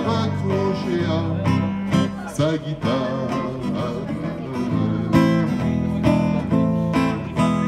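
Acoustic guitar strummed in a steady rhythm, playing a chanson accompaniment.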